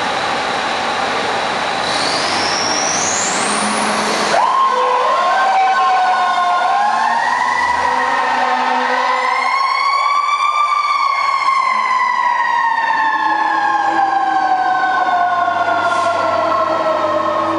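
Fire engine pulling out, its engine running loud with a whine rising in pitch. About four seconds in the siren starts, climbing in pitch for several seconds and then slowly falling.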